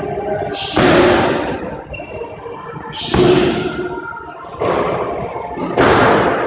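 Four hard smacks of strikes landing on leather focus mitts, spaced irregularly, each ringing out in a long echo off the hard walls of a squash court.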